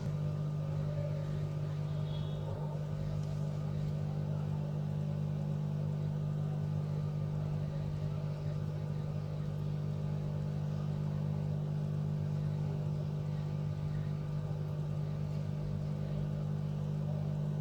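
Steady low motor hum that holds one constant pitch throughout.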